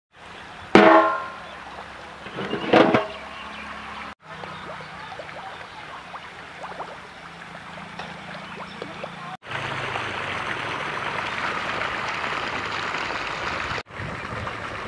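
Two loud honks of a vehicle horn in the first three seconds, then a faint low steady hum, then from about nine seconds a steady rushing hiss.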